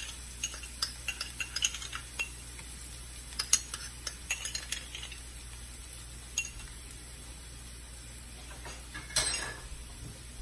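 Onions frying in a nonstick pan with a faint steady sizzle, while a spoon gives a run of light clinks and taps in the first half as ginger-garlic paste is added to the pan. About nine seconds in there is a short scraping clatter.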